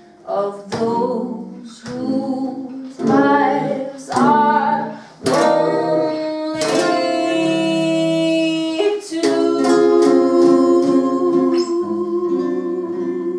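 Woman singing a slow jazz ballad with acoustic guitar accompaniment, holding one long note in the middle; near the end the voice drops out and the guitar carries on alone with plucked chords. The guitar is a little out of tune.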